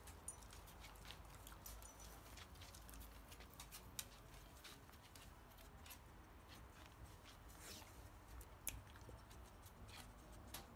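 Quiet, with faint scattered clicks and rustles from a dog searching for hidden treats: claws ticking on a tile floor and its nose pushing into a couch blanket.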